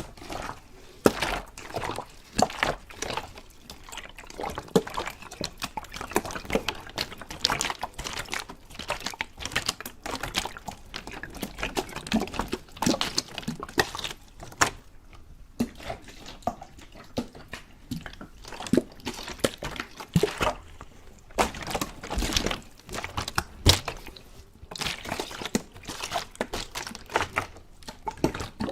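Water being poured, dripped and splashed in a dense, irregular run of short, sharp wet sounds, with a couple of brief lulls.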